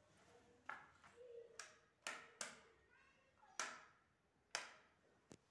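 Faint, sharp clicks and taps, about seven at uneven intervals over five seconds, with a faint voice in the background.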